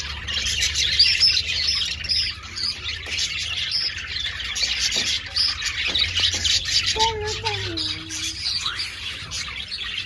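A flock of budgerigars chattering and chirping continuously, many birds at once.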